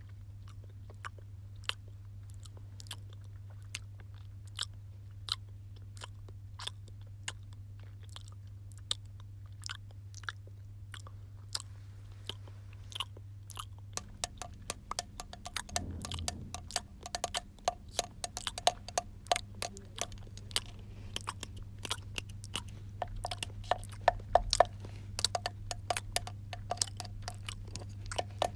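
Someone chewing noisily: sharp wet clicks and smacks, sparse at first, coming faster and louder about halfway through. A steady low hum runs underneath.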